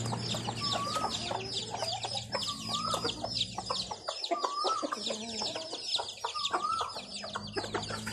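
Village chickens calling: a dense run of quick, high peeps, with a lower, bending call that repeats about every two seconds.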